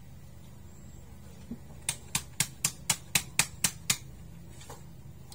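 Knife chopping through octopus onto a wooden cutting board: about nine quick, sharp knocks at roughly four a second, starting about two seconds in and stopping near four seconds.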